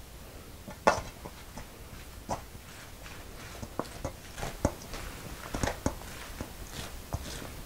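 Raw young radish greens bibimbap being mixed in a stainless steel mixing bowl with wooden utensils: irregular clicks and knocks of the utensils against the bowl. The sharpest knock comes about a second in, and a run of quicker clicks past the halfway point.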